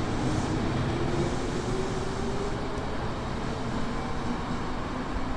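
Electric train running at the platform with steady rumbling noise and a faint motor whine that rises slowly in pitch.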